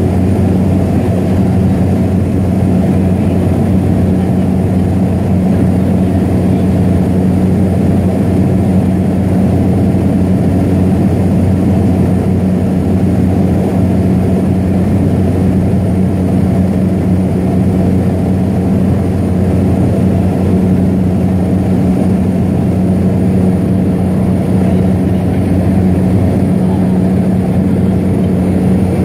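Seaplane engine and propeller running steadily in flight, heard from inside the cabin: a loud, even low hum that holds one pitch.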